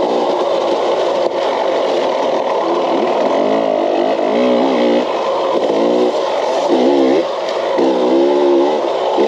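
KTM off-road motorcycle engine heard from on board, revving up and falling back again and again as the rider works the throttle over rough trail, with a steady rush of wind and dirt.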